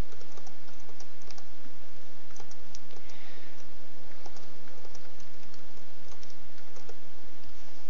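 Computer keyboard being typed on: irregular, quick keystroke clicks over a steady hiss.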